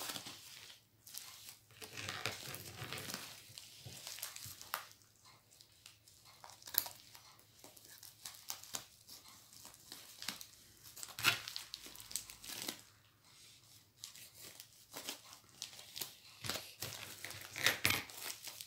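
Plastic packaging of a diamond painting kit being handled and unwrapped, rustling unevenly with a few louder crackles around a third of the way in, past the middle, and near the end.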